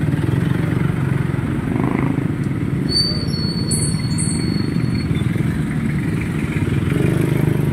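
Small motorcycle engine running steadily underway, with a thin high tone for a couple of seconds in the middle.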